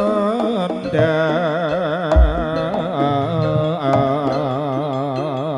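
Live jaranan gamelan music: a sustained lead melody with a wide, quick vibrato over drum strokes and a steady low drone, with a deep drum stroke about two seconds in.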